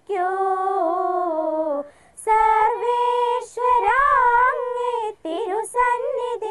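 Young voices singing a slow Malayalam prayer song in long held notes, in phrases with short breaks between them.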